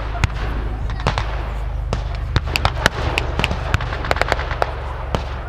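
Distant blank gunfire in a staged WW2 battle: irregular sharp cracks from small arms, some in quick clusters, over a steady low rumble.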